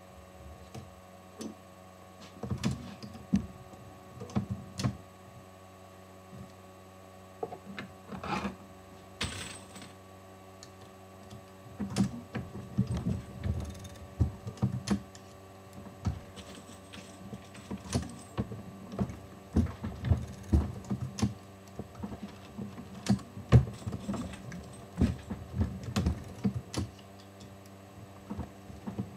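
Hornady Lock-N-Load AP progressive reloading press being cycled by hand: repeated metallic clicks and clacks as the ram strokes, the shellplate indexes and cases and bullets are set in, over a steady hum. The clacks are sparse at first, then come thick and fast through the second half.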